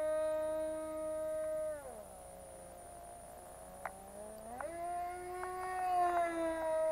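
Tiny MP-JET .061 model airplane engine buzzing at a high, steady pitch in flight. About two seconds in, the note slides down and goes quieter, then about two and a half seconds later it climbs sharply back to the full high whine, as the throttle is eased back and opened up again.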